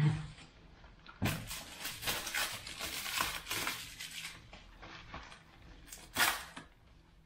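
Plastic and foam packaging rustling and crinkling as wrapped bicycle parts are handled and unwrapped. There is a knock at the start, a long stretch of rustling after about a second, and another short burst of rustling about six seconds in.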